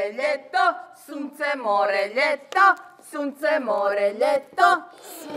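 Unaccompanied singing in puppet-character voices: a short song sung in phrases, with notes held and bending in pitch.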